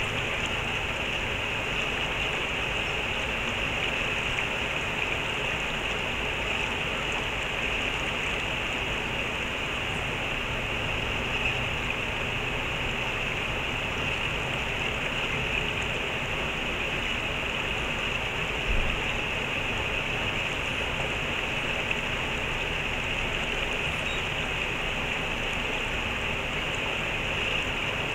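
Steady rush of stream water, an even noise with no let-up. A single low thump stands out about two-thirds of the way through.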